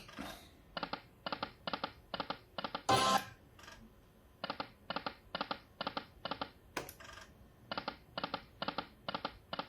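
Video slot machine's electronic reel-stop clicks, five in quick even succession as the reels land one after another. This repeats over three spins, each marked by a brighter chime, with no win music.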